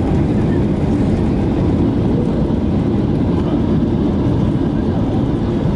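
Boeing 737-800 cabin noise during the landing roll-out, heard beside the wing: a loud, steady, low rumble from the CFM56 engines and the wheels running on the runway.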